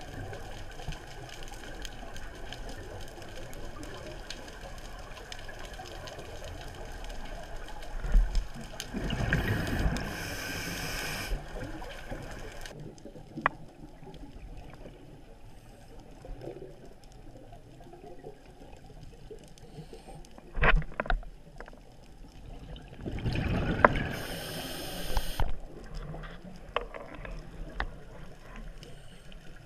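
A scuba diver breathing through a regulator, heard underwater through a GoPro's waterproof housing. Exhaled bubbles gurgle out twice, a little over a third of the way in and again about four-fifths in, over a muffled background with a few sharp knocks.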